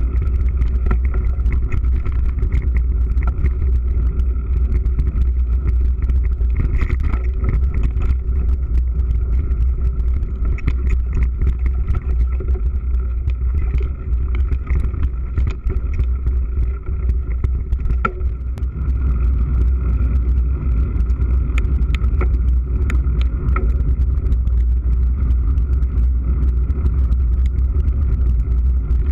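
Mountain bike ridden fast over a bumpy dirt singletrack, heard through a bike-mounted GoPro: a steady heavy rumble of wind and tyres on the ground, with scattered rattles and clicks from the bike over bumps.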